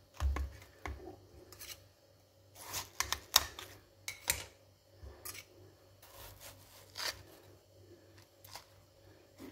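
Knife cutting watermelon on a metal tray: scattered sharp clicks and knocks, the loudest a cluster about three seconds in.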